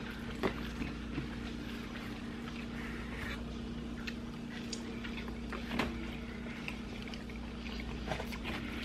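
Eating sounds: faint chewing and a few small clicks and crunches as food is picked from cardboard pizza boxes, over a steady low hum.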